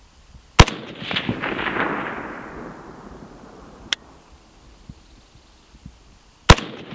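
Two single rifle shots from a custom AK in 7.62×39 built on an Arsenal SLR-107, fired about six seconds apart. Each is a sharp crack followed by a long rolling echo that fades over two to three seconds.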